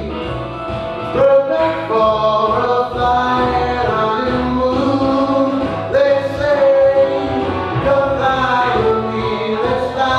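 Male singer performing live into a microphone, holding long notes over instrumental backing music.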